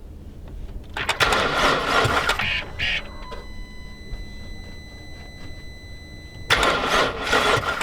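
Two tries at cranking a 2019 BMW X6M on a weak battery, about a second in and near the end: the starter system clatters for a second or so each time without the engine catching, because the battery does not have enough charge. A steady electronic warning tone sounds throughout.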